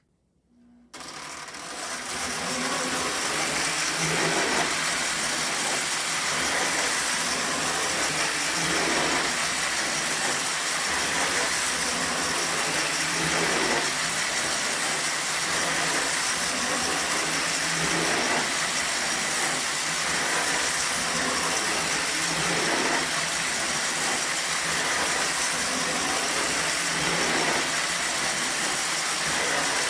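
Lionel No. 2065 toy steam locomotive and its cars running on a loop of O27 track: the electric motor's whir and the wheels clattering on the rails, starting up about a second in and settling into a steady run.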